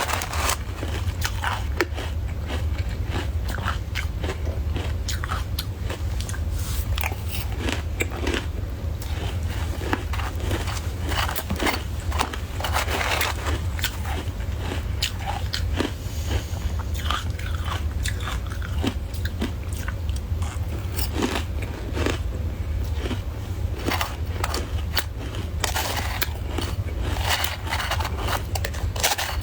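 Close-miked biting and chewing of soft white ice, like freezer frost: a dense run of crisp, crackly crunches, over a steady low hum.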